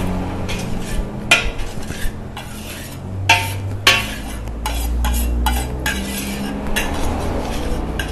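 Metal spatula scraping and clanking against a large wok as fried rice is stirred and spread out over a low flame. Irregular scrapes with a few sharper clanks, about a second in and again around three to four seconds in.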